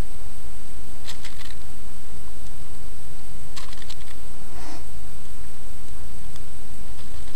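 9 mm blank cartridges clicking against each other and into a pistol magazine as they are loaded by hand, in short bursts of clicks about a second in and again about three and a half seconds in, over a steady low rumble.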